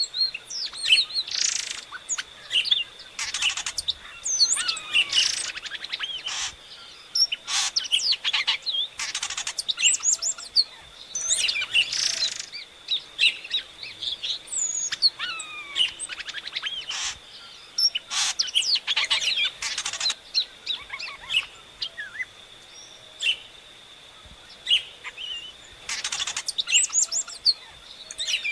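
Songbirds singing: quick chirps and whistled notes in repeated loud bursts with short pauses between them, over a thin steady high tone.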